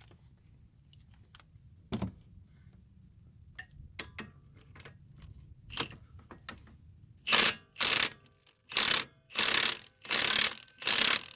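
A wrench working the lower strut-to-knuckle bolt: light clicks and knocks, then, about seven seconds in, six short, loud bursts of mechanical rattling in quick succession.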